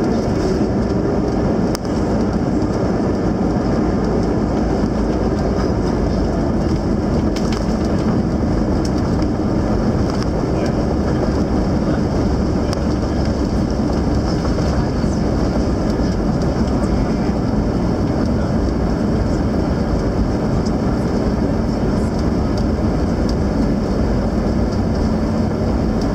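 Steady cabin noise of an Airbus A321neo taxiing after landing: the engines at idle and the landing-gear wheels rumbling over the taxiway, with a steady low hum running through it.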